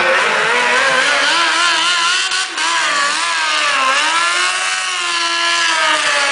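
A sport motorcycle's engine is held at high revs during a burnout, its pitch wavering up and down as the throttle is worked. It dips briefly about two and a half seconds in.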